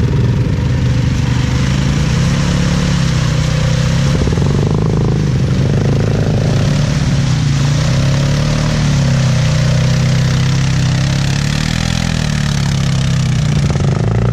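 Utility ATV engine revving up and down under light throttle while the quad is worked through deep mud, stuck in a rut.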